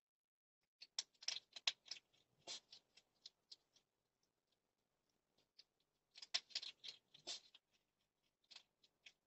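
Hedgehog crunching dry food from a bowl: quick clusters of crisp crackles and clicks, in two bouts of a few seconds each.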